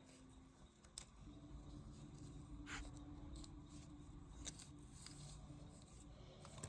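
Near silence with a few faint clicks and handling noises.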